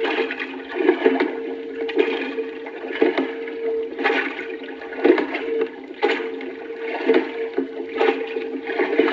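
Rushing, splashing water from a vintage sound-effects record, swelling in surges about once a second.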